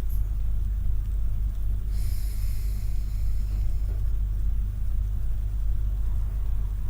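A steady low rumble throughout, with a brief hissing breath about two seconds in: an 'ocean breath' exhale pushed out gently with the tongue touching the roof of the mouth, sounding a bit like wind or a kettle.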